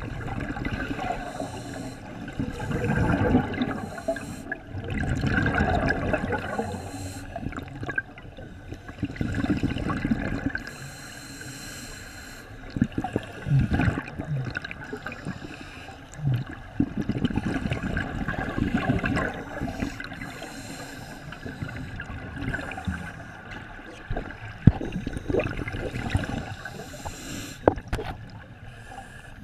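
Scuba regulator exhaust bubbles heard underwater: a gurgling burst of bubbles every three to four seconds with each exhalation, a low muffled rumble between them, and a couple of sharp knocks near the end.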